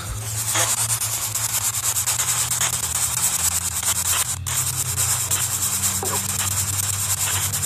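Spirit Box radio scanner sweeping through stations: a steady hiss of radio static, rapidly chopped as it jumps from channel to channel, with a low hum underneath.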